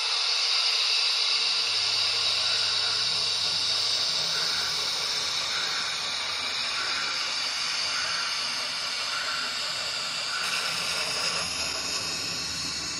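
Digital sound decoder in a Märklin H0 model of a DB class 44 steam locomotive, playing a steady steam hiss. A low hum comes in about a second in, and faint soft chuffs follow at a slow pace, a little over one a second.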